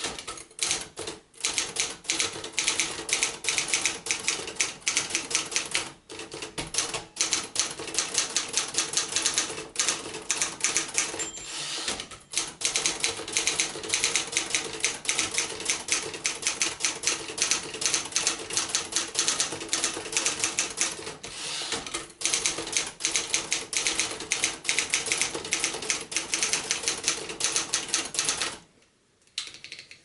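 1959 Remington Quiet-Riter Eleven portable typewriter being typed on steadily: rapid keystrokes and typebar strikes with a few short pauses, stopping near the end.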